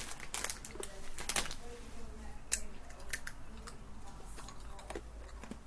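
Party Ring biscuits being bitten and chewed, heard as a handful of sharp, separate crunches.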